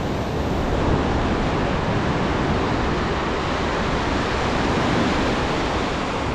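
Ocean surf breaking and washing up the beach as a steady rush, with wind buffeting the microphone.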